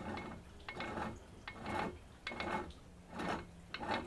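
Yamaha 30D outboard propeller shaft being turned by hand between the centres of a runout stand, under a dial indicator: a short metallic click-and-scrape with a faint squeak, repeating roughly every three quarters of a second. It is the runout check of a badly bent shaft.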